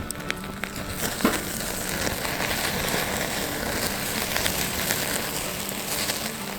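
Food sizzling and spitting in a hot pan over a campfire, the hiss and crackle jumping up sharply about a second in and holding steady.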